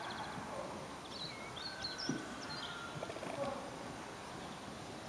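A few short, high bird chirps between about one and three seconds in, over a steady background hiss, with a single soft knock about two seconds in.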